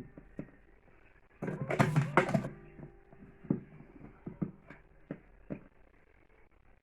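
Clicks and knocks from handling an electric cigarette rolling machine, with a louder, busier clatter lasting about a second starting near one and a half seconds in.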